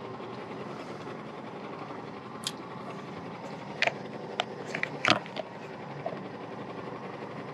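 Steady wind and water noise on open sea, broken in the middle by about half a dozen sharp clicks and knocks as a fishing rod is handled against the boat.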